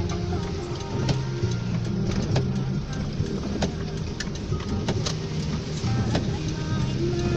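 Heavy rain falling steadily, with many sharp drops striking a hard surface, while music with low held notes plays underneath.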